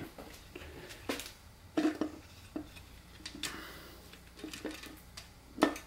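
Scattered light metallic clinks and knocks as a Honda K24 oil pump is tilted and worked out from underneath its drive chain, the pump and chain knocking against the block; the sharpest knock comes near the end.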